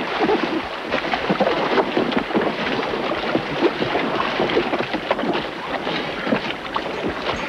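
Sea water splashing and sloshing around an inflatable boat as divers climb aboard, with many small knocks and wind buffeting the microphone.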